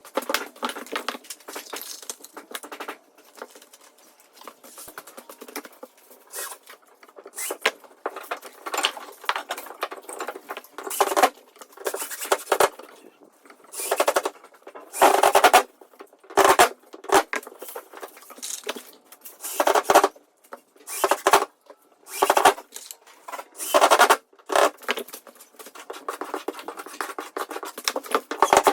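Hand tools working on drywall: irregular scraping strokes of metal on wall and compound, some short and some about a second long, with light tapping between them.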